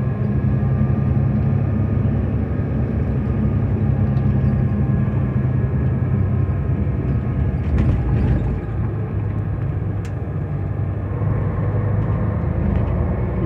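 Old sawmill machinery running with a steady low mechanical hum, with a couple of brief knocks partway through.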